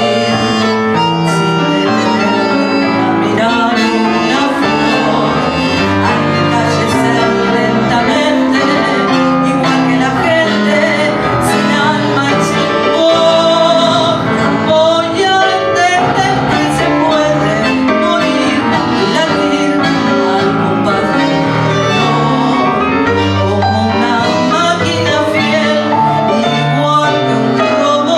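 Tango music from a piano, guitar and bandoneon trio playing continuously.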